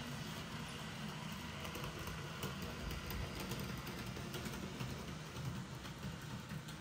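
Roco H0-scale model ÖBB 1670 electric locomotive running along the track with its beer wagons: a steady low motor and running hum, with scattered light clicks and rattles from the wheels on the rails.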